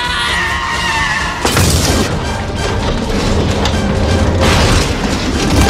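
Movie action sound effects: a heavy crash about one and a half seconds in as a big truck tips over, followed by continuing crashing and scraping metal noise, with dramatic film score music throughout.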